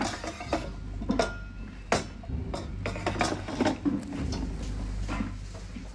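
Plastic basket drawer of an air fryer being worked by its handle, with a run of irregular clicks and knocks, the sharpest about one and two seconds in.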